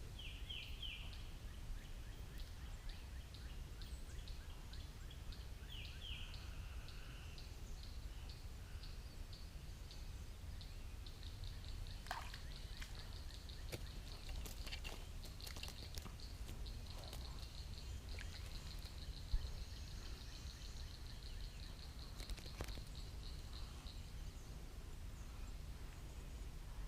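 Outdoor ambience with a few short bird chirps and a high, pulsing call. The call repeats a couple of times a second, then quickens into a steady trill and stops near the end, all over a low, steady rumble.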